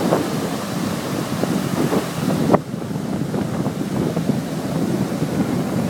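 Surf washing and breaking along a shallow beach, with wind buffeting the microphone and one short, louder blast about halfway through.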